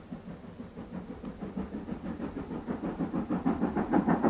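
Steam locomotive exhaust beats in a quick, even rhythm of several chuffs a second, growing steadily louder.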